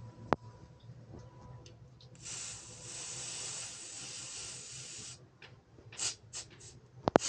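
A sharp click, then a steady hiss lasting about three seconds, followed by three short hisses and a quick pair of clicks near the end.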